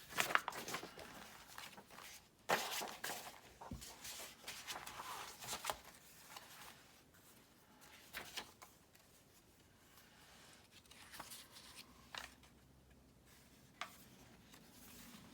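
Sheets of paper rustling and being laid down one on another, in scattered short bursts with a few light taps.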